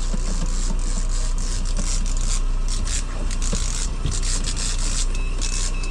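Fishing reel being cranked to bring in a fish on the line, a scraping, rasping sound, over the steady low hum of the boat's motor.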